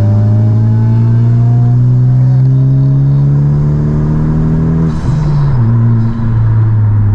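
Honda Civic Type R's turbocharged four-cylinder pulling through a gear, heard from inside the cabin, its pitch climbing steadily. About five seconds in it breaks and drops for an upshift, then settles to a steady note.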